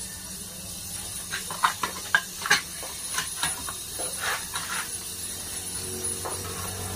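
A run of irregular clicks and light knocks from handling tools and parts during refrigerator pipe work, the sharpest a few about two seconds in, over a steady low hum and faint hiss.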